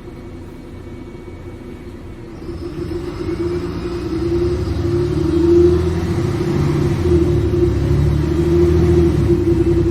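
Bus engine running with a low rumble and a steady held tone above it, growing louder from about two and a half seconds in and staying loud.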